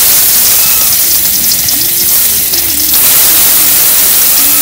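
Tomatoes sizzling and crackling in hot oil in a steel wok, a steady loud hiss.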